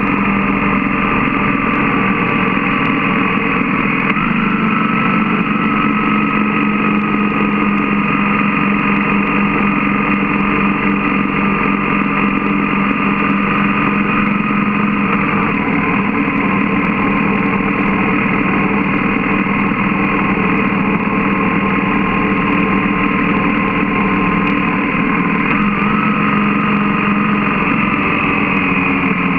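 BMW GS motorcycle's boxer-twin engine running under way at steady speed, heard from on the bike, its pitch shifting slightly a few times as the throttle changes.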